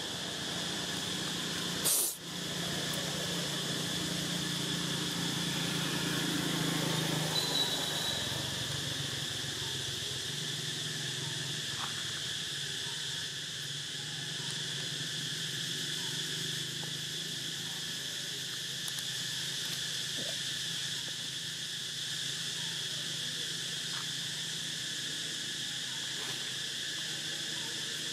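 Steady high insect chorus droning without a break, with one sharp click about two seconds in.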